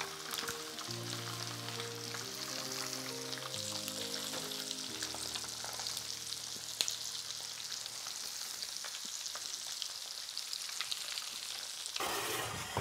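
Cornmeal-coated small river fish frying in hot pork lard in an enamel roasting pan: a steady, crackling sizzle. A soft tune plays under it for the first several seconds.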